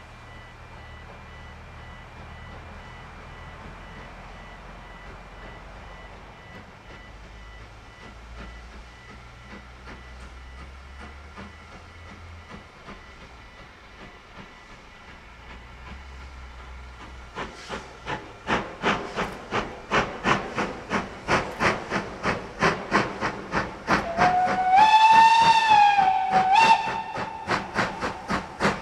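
Steam locomotive working toward the listener: a faint distant rumble at first, then from about two-thirds in sharp exhaust chuffs, about three a second, growing louder. Near the end a long whistle blast slides up in pitch and then holds.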